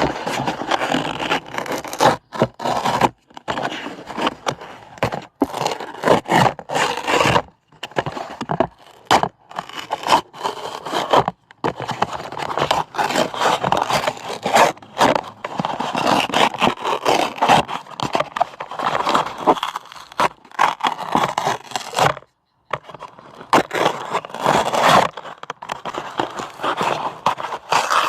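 Paper being torn, stroke after stroke: crisp, crackly rips of a second or two each with short pauses between them.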